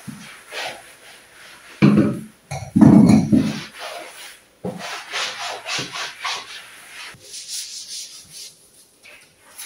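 A cloth rubbing and wiping in quick back-and-forth strokes over chair backs, a table top and then a plastic table mat. Two heavy knocks about two and three seconds in are the loudest sounds.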